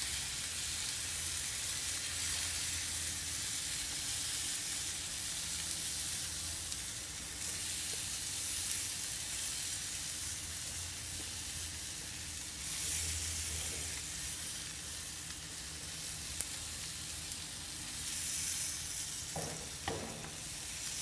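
Steady sizzling from a beer can chicken cooking on a hot gas grill while it is brushed with white barbecue sauce. The sizzle holds an even hiss throughout.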